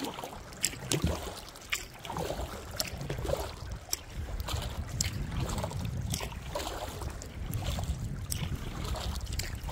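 Canoe paddle dipping and pulling through the water in a steady series of strokes, each with a short splash and drip, over a low wind rumble on the microphone.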